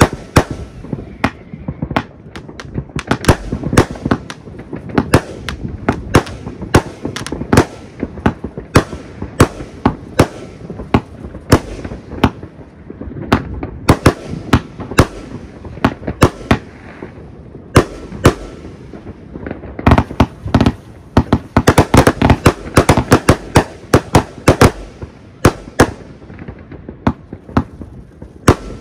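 Fireworks and firecrackers going off in a dense, irregular barrage of sharp bangs and cracks, several a second, thickest about two-thirds of the way through.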